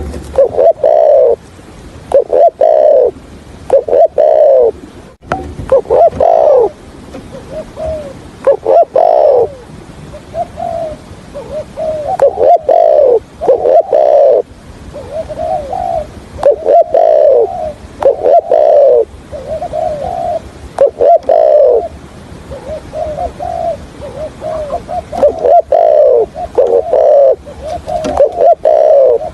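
Spotted dove cooing in repeated broken, stuttering phrases of short coos, the 'cà lăm' style of call that trappers use from a decoy bird to lure wild doves. A few sharp clicks fall between some phrases.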